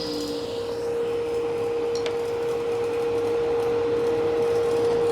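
Table saw running with no wood in the blade just after a rip cut, giving a steady hum with a couple of light knocks, one about two seconds in and one near the end.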